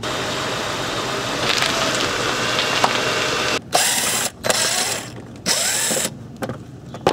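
A steady noise for the first few seconds, then a Porter-Cable cordless driver running in three short bursts, backing out the screws that hold the inner fender liner.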